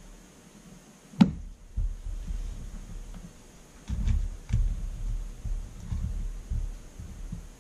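Handling noise of nitrile-gloved hands working on a small revolver's grip frame: one sharp click about a second in, then soft low thumps and rubbing from about four seconds on.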